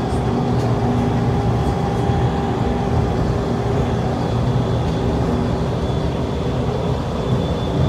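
Steady rumble of an airport people-mover train in motion, heard from inside the car, with faint steady electric whine tones over it.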